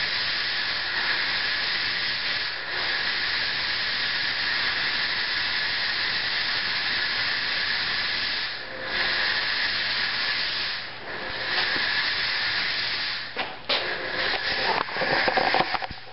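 Chauvet Hurricane 1800 Flex fog machine hissing steadily as it jets fog, the hiss dipping briefly a few times. Irregular clicks and knocks come in near the end.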